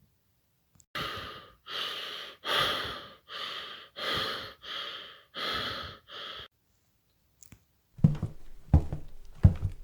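Heavy, rhythmic breathing, about eight loud breaths in a row over some five seconds, then it stops. Near the end a series of dull thuds begins.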